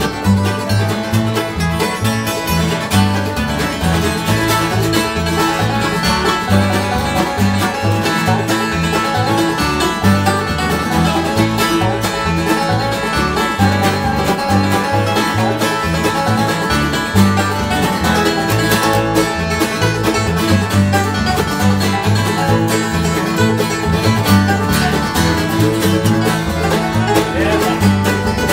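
Bluegrass band playing live on acoustic instruments: banjo, acoustic guitar, mandolin, fiddle and upright bass.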